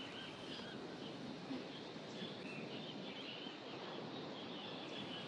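Quiet outdoor ambience: a steady background hiss with faint, scattered bird chirps.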